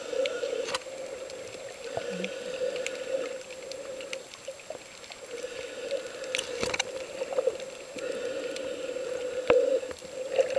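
Muffled underwater sound picked up by a camera beneath the sea: a steady low drone with scattered sharp clicks and pops.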